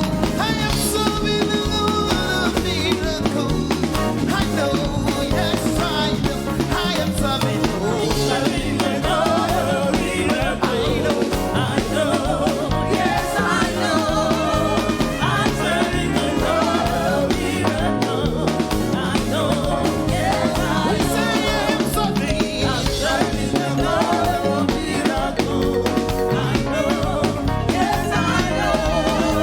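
Upbeat live gospel praise music: singers over a band with drums, bass and guitar, playing a steady danceable beat.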